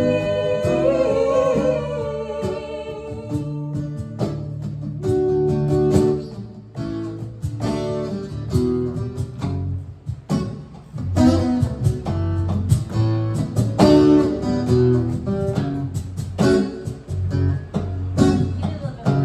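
Live acoustic band playing a song: a sung note held over acoustic guitar for the first couple of seconds, then acoustic guitar picking and strumming over low bass notes.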